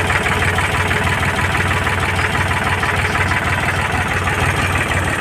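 Heavy diesel engine running steadily at idle.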